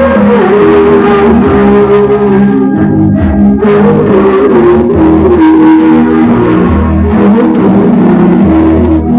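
Loud music played on electric guitar and bass guitar, with a gliding melody line over held lower notes.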